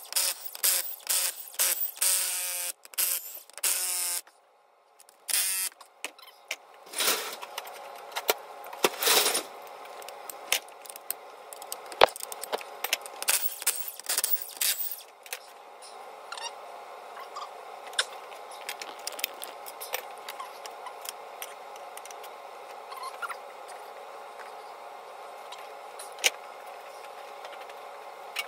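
Metal tools clinking, knocking and rattling on an engine's cylinder head as the head bolts are taken out, densest in the first half. It thins out to a steady hum with scattered clicks.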